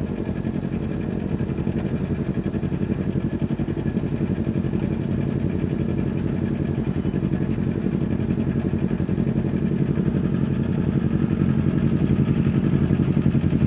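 Kawasaki Ninja 400's parallel-twin engine running steadily through an Akrapovic slip-on exhaust, with an even pitch and fine rapid pulsing, getting slightly louder toward the end.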